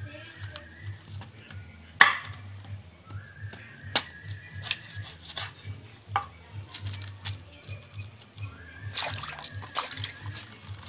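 Large knife chopping through unripe jackfruit and striking a wooden cutting board: three sharp knocks about two seconds apart, the first the loudest. Near the end comes a quick run of splashes as cut pieces drop into a metal basin of water, over soft background music with a held high note.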